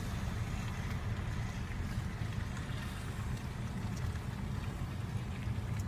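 Steady low rumble of a car idling, heard from inside the car's cabin.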